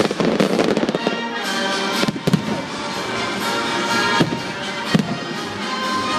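Fireworks bursting in a finale: a dense crackle of small bangs in the first second, then single sharp bangs every second or two, with music playing throughout.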